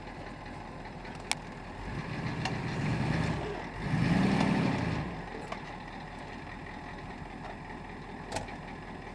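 Ford tow truck engine idling steadily. Its low note swells louder twice for about a second each, around two and four seconds in. Two sharp clicks come, one early and one near the end.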